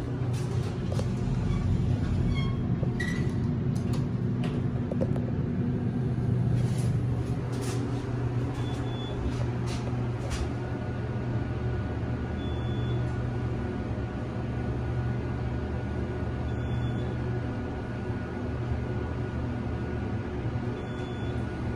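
Steady drone inside an elevator cab, from the cab's ventilation fan and the moving car, with a few light clicks in the first seconds. About halfway a faint thin whine joins in, and four short high beeps sound a few seconds apart.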